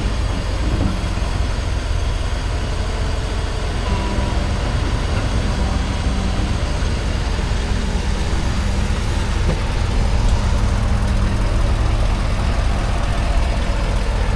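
A steady low engine rumble, like a motor idling.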